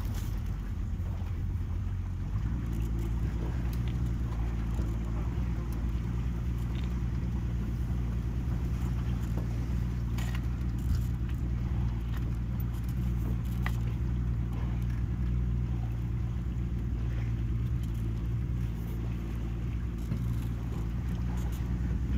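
Boat motor running steadily at low speed while the boat edges through a floating log jam, with a few faint knocks now and then.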